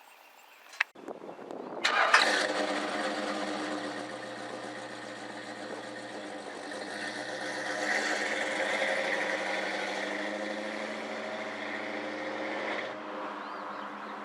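A pickup truck's engine starting: a click and a short crank, then it catches and runs steadily, picking up a little about 8 seconds in, before the sound cuts off abruptly near the end.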